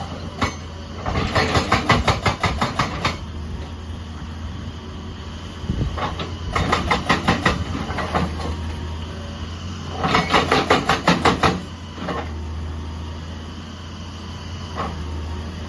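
Excavator-mounted hydraulic breaker hammer striking in three bursts of rapid blows, each lasting a second or two, over the steady drone of the excavator's diesel engine.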